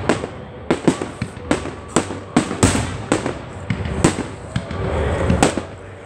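Fireworks display: a rapid, uneven string of sharp bangs, roughly one to two a second, with stretches of hissing between them.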